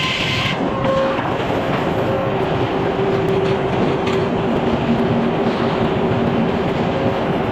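Sawmill saw running through a log: a loud, steady machine noise with a few faint held tones in it.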